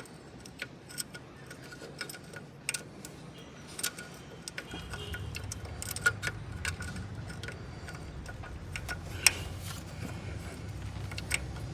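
Metal tools clinking and clicking irregularly against engine parts, a dozen or so sharp knocks. A low steady hum starts about five seconds in.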